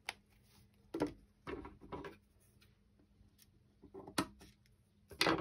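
Scissors cutting a beaded trim and being handled on a wooden tabletop: a few short clicks and knocks, the loudest one near the end.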